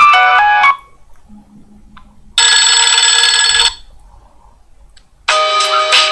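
Nokia N72 mobile phone ringtones: three short, different melodic tones played one after another with pauses between, the third starting near the end.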